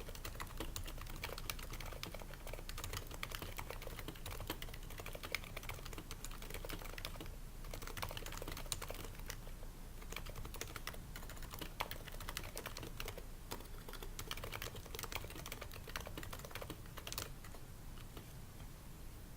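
Continuous fast typing on an HHKB Pro 2 keyboard with Topre switches, whose keys are dampened with o-rings and whose case is lined with shelf liner: a dense run of keystroke clicks with a short pause a little under halfway.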